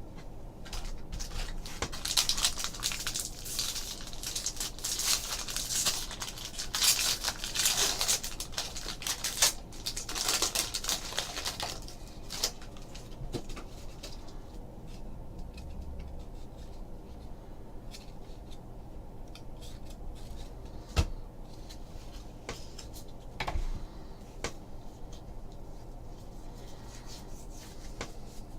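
A trading card pack wrapper being torn open and crinkled, with dense crackling for the first ten seconds or so. After that comes quieter handling of the cards: sliding and an occasional sharp click as they are sorted.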